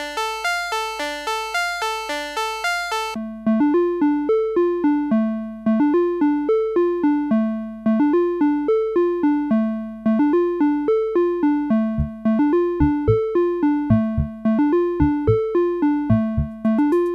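Yamaha Electone A-55N organ's Auto Arpeggio playing quick, repeating broken chords, each note decaying. About three seconds in, the pattern drops to a lower register, and past the middle, low bass notes join in under it.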